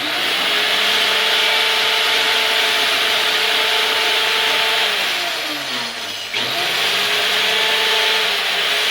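Power saw cutting into a porch column: a steady motor whine under a loud rasping cut. About five seconds in the motor is let off and winds down, then just after six seconds it is started again and brought back up to speed to keep cutting.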